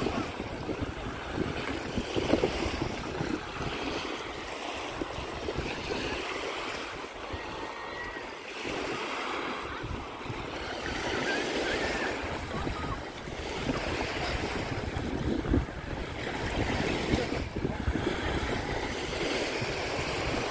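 Small Baltic Sea waves breaking and washing up onto a sandy beach, rising and falling in gentle surges, with wind buffeting the microphone.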